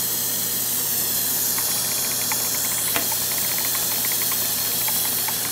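Gas-oxygen hand torch burning with a steady hiss, its flame on a glass neon tube to soften the glass so that a hole can be blown through it.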